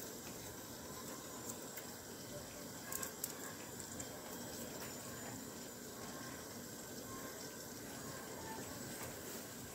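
Vegetables frying in hot oil in a pan: a steady sizzle, with a few faint clicks about three seconds in.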